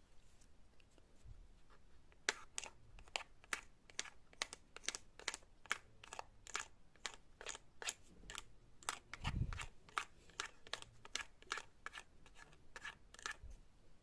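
Fidget board toys being clicked over and over, about three sharp clicks a second, with one dull thump about nine seconds in.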